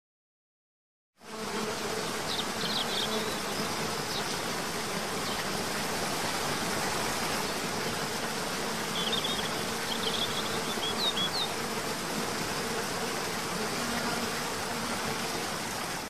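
Steady rush of a tiered forest waterfall pouring into a pool, starting about a second in, with a steady insect buzz under it. A few short high chirps come twice, soon after the start and again past the middle.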